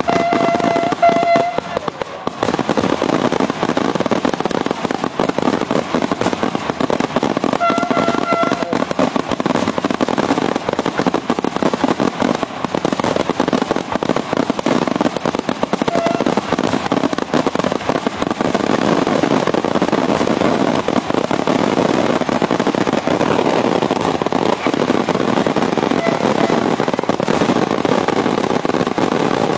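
Daytime firework display by Senatore Fireworks: a dense, unbroken rattle of firecracker bangs going off in rapid succession. A short steady tone sounds twice, near the start and about eight seconds in.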